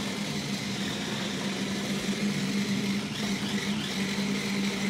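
Remote-control toy stunt car's small electric motors running with a steady hum as it drives about.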